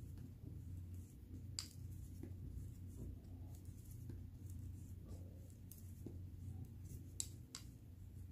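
Knitting needles faintly clicking and tapping as stitches are worked, with a few sharper clicks near the start and twice near the end, over a low steady hum.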